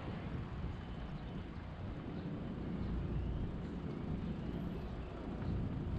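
City street traffic: a steady low rumble of vehicles at a busy intersection, with no single event standing out.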